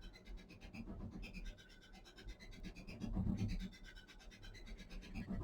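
Faint, irregular scratching of a paintbrush being pressed and rubbed on wet watercolour paper.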